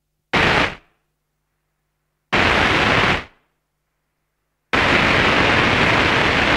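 Electronically synthesized heavy ray gun shots: three harsh, static-like blasts, each starting abruptly. The first is short, the second lasts about a second, and the third is held for about three seconds, still sounding at the end.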